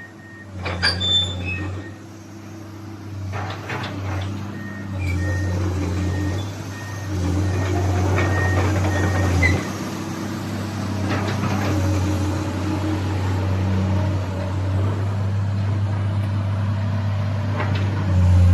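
Komatsu PC200-8 excavator's diesel engine running, a steady low hum that rises and falls as the machine works. Scattered knocks are heard, and a short beep repeats from about four seconds in to about nine and a half.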